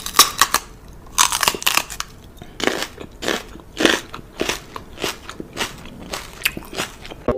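Crunching, chewing sounds of mock eating: a run of sharp crunches, roughly two a second.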